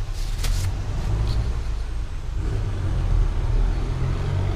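Steady low engine rumble, like a motor vehicle idling, with a few brief rustles and clicks in the first second and a half.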